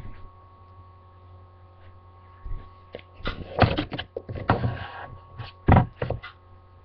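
A glossy magazine handled right against a laptop's built-in microphone: paper rustling with several knocks and thumps in the second half, the loudest two near the middle and near the end, over a steady electrical hum.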